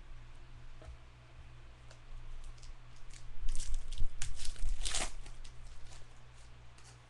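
A trading card pack's wrapper being torn open and crinkled: a short run of crackling rips about halfway through, over a steady low hum.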